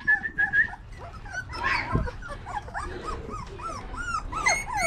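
A man whistling a string of short notes as a feeding call, then young puppies about four weeks old whimpering and yipping in many short rising-and-falling cries, two to three a second. A single dull thump about two seconds in, and a few more whistle notes near the end.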